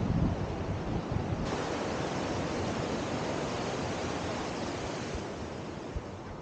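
White-water river rapids rushing, a steady hiss of fast water that gets louder and brighter about a second and a half in. Wind rumbles on the microphone at the start.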